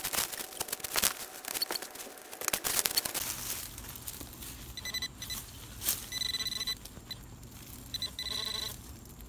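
A digging tool scraping and chopping through leaf litter and soil, then a handheld pinpointer probe in the hole giving warbling electronic beeps in several bursts from about five seconds in. The beeps signal a metal target close by in the dug soil.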